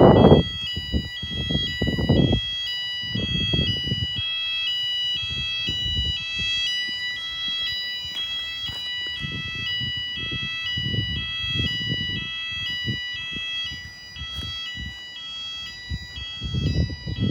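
School fire alarm sounder going off: two high tones alternating about twice a second over a steady high tone, continuous throughout.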